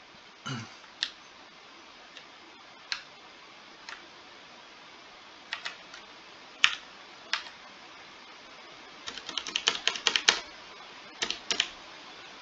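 Computer keyboard keystrokes while editing a file in a terminal: single key presses spaced a second or so apart, then a quick run of keys about nine seconds in and a few more near the end.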